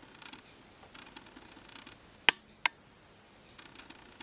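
Two sharp clicks about a third of a second apart, with faint patchy hiss around them.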